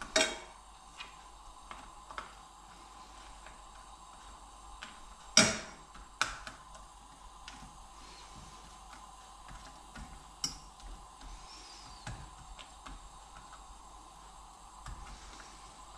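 A metal fork tapping and scraping against a nonstick frying pan while stirring a thin egg batter: scattered sharp clicks, the loudest just after the start and about five and a half seconds in, over a faint steady hum.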